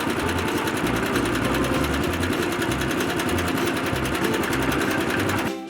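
Cement mixer running: a motor with a fast, even mechanical rattle over a pulsing low hum, cutting off near the end.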